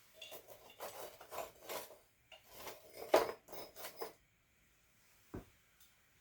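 Tea-ceremony fire-tending utensils scraping and rubbing in the ash and charcoal of a brazier: a quick run of short scraping strokes over about four seconds with one sharper stroke midway, then a single light knock near the end.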